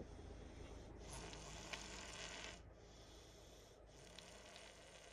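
Soft snoring breaths of a sleeping child, slow and regular, about three breaths, over a low steady hum inside the car.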